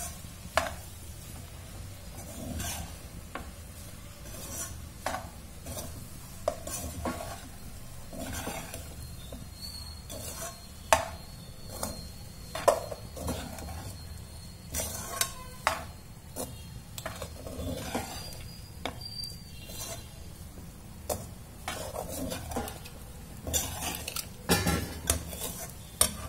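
Metal spatula stirring and tossing fried rice in a metal pan: irregular scrapes and clinks of metal on metal, with a few sharper knocks. Frying sizzles faintly underneath.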